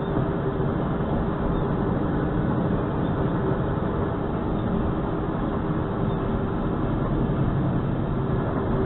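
Steady engine drone and tyre noise of a truck driving on a snowy road, heard inside the cab, with a faint steady hum running through it.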